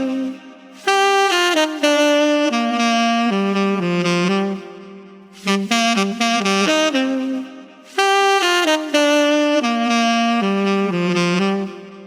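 Solo saxophone playing a melodic line of separate held and quick notes, in phrases of a few seconds with short pauses between them; the same phrase comes round twice.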